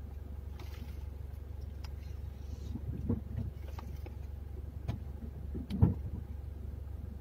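Low steady hum of a car idling, heard from inside the cabin, broken by a few knocks and bumps as a wild Asian elephant's trunk pulls at plastic storage boxes in the back of the car; the loudest bang comes about six seconds in.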